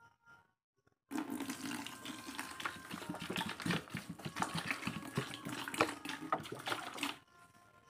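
Water pouring from a plastic bottle into a plastic bucket. It starts about a second in and stops about a second before the end.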